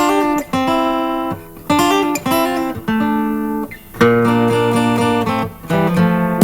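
Acoustic guitar playing the instrumental intro of a 1969 pop recording, in short plucked-and-strummed chord phrases with brief gaps between them, before the drums come in.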